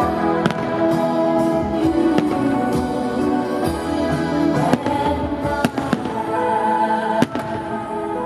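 Aerial fireworks shells bursting with sharp bangs every second or two, over steady music.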